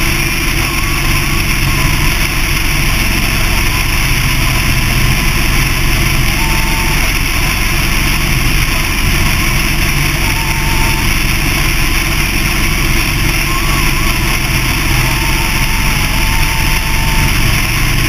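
Motorcycle running steadily at highway cruising speed: a constant engine drone under wind and road noise.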